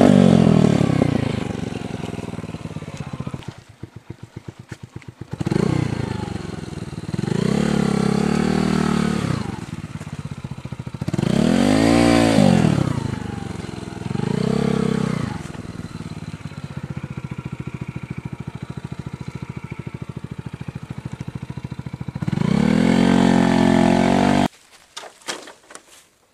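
125cc motorcycle engine revving up and down again and again, with short stretches of low, pulsing running between the bursts of throttle, as the bike works along a muddy trail with poor traction. The engine sound cuts off abruptly near the end.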